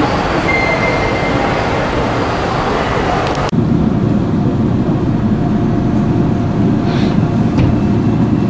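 Underground subway station ambience with a thin high tone, cut off suddenly about three and a half seconds in by the steady low rumble of a Shinbundang Line driverless subway train running slowly along a platform, heard from inside the car. Two faint clicks come near the end.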